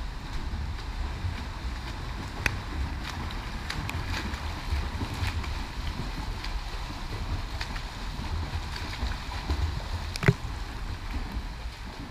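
Water splashing and sloshing from a swimmer's front-crawl strokes, over a steady low rumble of wind and handling noise on an action camera's microphone. A sharp knock stands out about ten seconds in.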